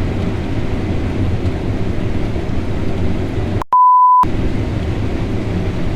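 Steady engine rumble of harvest machinery. About three and a half seconds in, it is cut by a half-second single-tone censor bleep.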